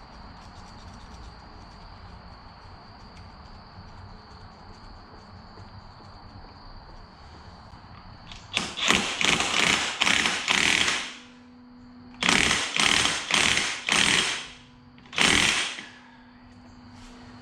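Impact wrench hammering in three bursts, the first two each a couple of seconds long and the last one short, tightening a lock nut back on the engine.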